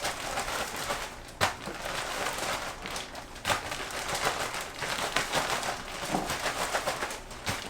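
Catfish pieces being shaken in a plastic freezer bag of yellow cornmeal to coat them: steady crinkling and rustling of the bag, with a couple of sharper thumps about one and a half and three and a half seconds in.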